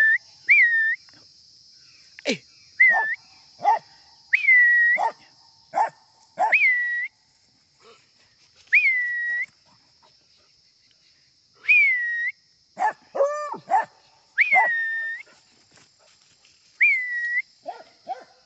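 Young American hound, a nine-month-old bitch, barking repeatedly in short sharp barks. Many barks are followed by a brief high cry, as she gives tongue while chasing capybaras.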